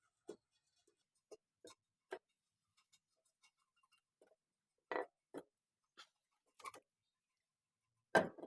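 Irregular light clinks and knocks of tools and metal parts being handled during engine repair work, about a dozen in all, with a louder knock about five seconds in and another near the end.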